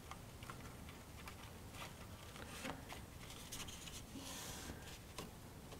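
Faint rustling and light ticks of cardstock being handled, with a soft rub about four seconds in as hands press a glued paper seam flat.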